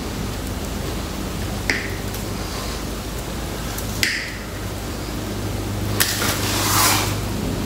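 Wire snips cutting chicken wire: two sharp metallic snips about two seconds apart, then a short rustling scrape of wire on wet cement about six seconds in, over a steady low hum.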